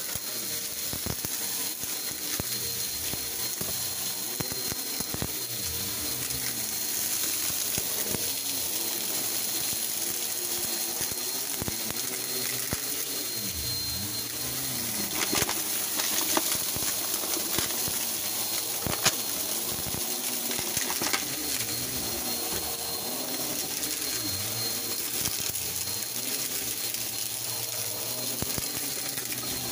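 Upright bagless vacuum cleaner running on carpet, its motor pitch rising and falling as it is pushed back and forth. Grit and debris tick and crackle as they are sucked up, with a few sharp clicks partway through.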